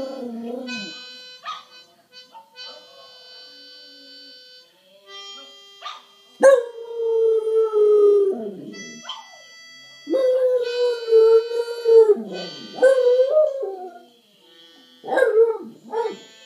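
German Spitz howling along to harmonica music: two long drawn-out howls, each sagging in pitch at its end, and a shorter one near the end. Steady harmonica notes play between and under them.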